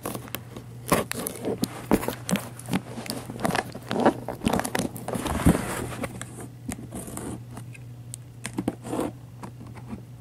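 Packing tape on a cardboard box being slit with a folding knife and torn open: irregular scraping, tearing and crinkling, with sharp knocks of handled cardboard. The sounds are busiest in the middle and thin out near the end.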